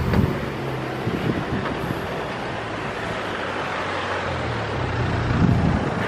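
Road traffic: cars passing on the street, a steady engine and tyre noise that swells near the end as a car goes by.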